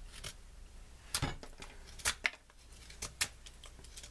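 Saber-ground steel knife blade biting into and shaving a stick of resinous fatwood: several short, sharp cuts about a second apart.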